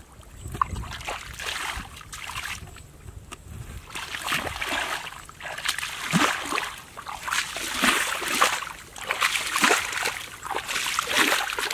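Bare feet wading through shallow muddy water, splashing and sloshing with each step, about one step a second from about four seconds in.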